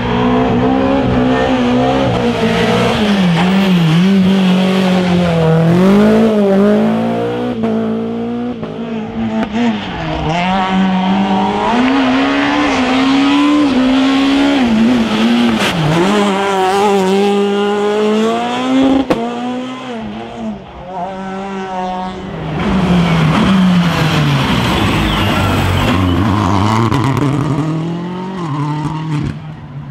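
Rally car engines at full stage pace, revving hard and dropping back over and over through quick gear changes and lift-offs. A couple of sharp cracks come about halfway through.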